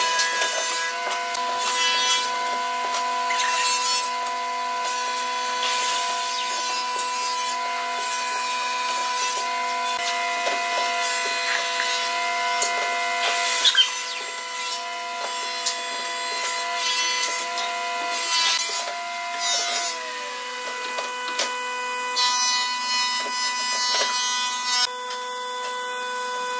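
Pine bed slats being handled and laid in a wooden frame: irregular wooden knocks, clatters and rubbing as boards are set down and shifted. A steady humming tone continues underneath.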